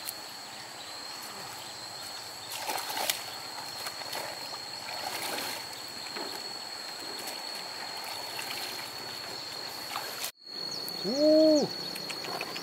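Water sloshing and splashing as a person wades and works in shallow muddy floodwater. Near the end comes a short, loud pitched call that rises and falls.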